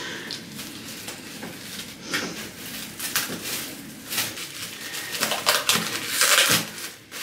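Cling film crinkling and rustling in irregular bursts as it is pulled from the roll and pressed around the head, loudest a little after the middle.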